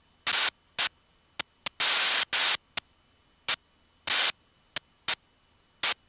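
About a dozen short bursts of hiss that switch on and off abruptly, with dead silence between them. This is the aircraft's headset intercom squelch opening and closing on cabin noise with no speech.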